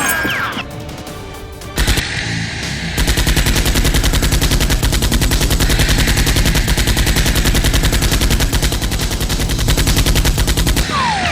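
Gunfire sound effects: a sharp shot or two, then a long burst of rapid automatic fire starting about three seconds in and running for about eight seconds before stopping.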